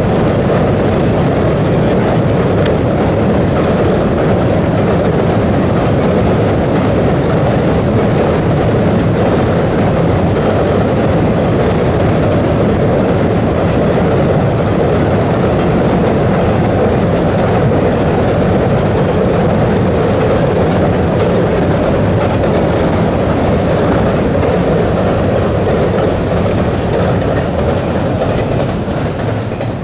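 Double-stack container freight cars rolling across a high steel trestle bridge: a steady, loud rumble of wheels on the steel spans with clickety-clack, sagging slightly near the end as the last cars clear the bridge.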